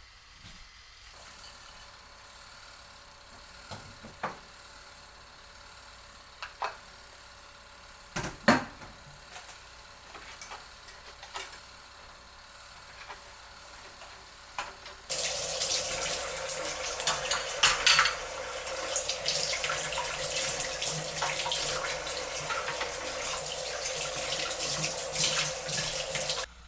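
A few light clinks and knocks of dishes, then a kitchen tap turned on and running water into a sink. The water starts suddenly about halfway through and stops suddenly near the end.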